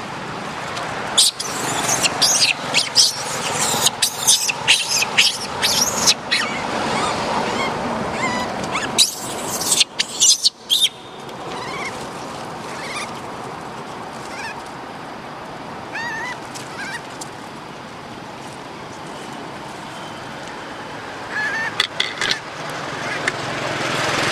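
Macaque monkeys screaming: a rapid flurry of short, high-pitched shrieks for about ten seconds, then only a few faint squeals later on, over a steady background hiss.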